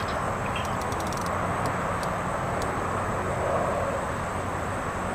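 Steady outdoor background noise: a low, even rumble with a few faint scattered ticks.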